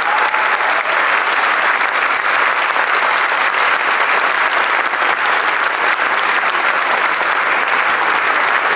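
Concert audience applauding: dense, steady clapping from a full hall.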